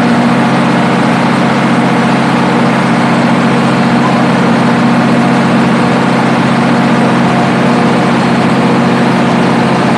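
Generator set's engine running steadily at constant speed: a loud, even hum with several steady low tones.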